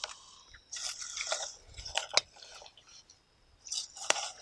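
Popcorn crunching and rustling as it is scooped with a spoon from a camping pot and eaten, in three short spells with a couple of sharp clicks.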